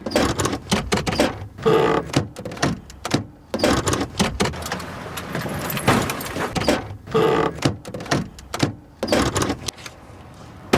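Old cars rattling and clanking: a run of irregular knocks and clatters, with a brief squeak about two seconds in and again about seven seconds in.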